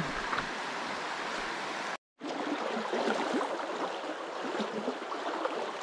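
River water running over a stony bed: a steady babbling wash. It cuts out for a moment about two seconds in, then carries on.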